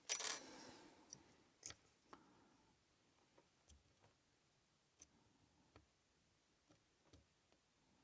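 Pick and tension tool working in the keyway of a tiny padlock: a short scrape at the start, then faint, scattered metallic clicks and ticks.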